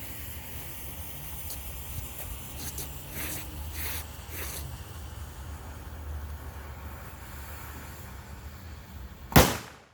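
A homemade 2-gram pyrotechnic charge, hot-glued shut inside a small container, going off with a single loud, sharp bang near the end, after a steady low outdoor rumble.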